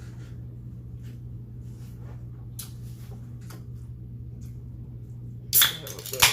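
Close-up eating noises: faint clicks and smacks from chewing and handling food over a steady low hum, then two loud, sharp noises near the end, about half a second apart.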